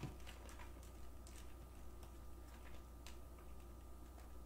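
Faint, irregular ticks of a stack of basketball trading cards being picked up and leafed through by hand, over a low steady hum.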